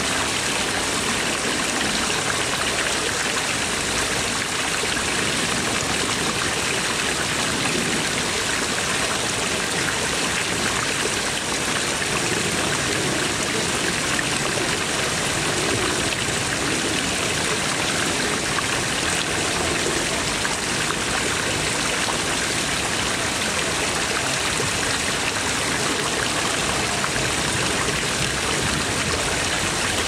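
Water pouring from stone dragon-head spouts in steady arcs and splashing into a lily pond: a continuous, even splashing.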